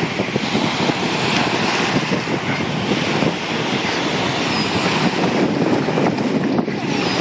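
Wind buffeting the microphone over small lake waves washing onto a pebble shore. Near the end there is more splashing as a dog wades out through the shallows.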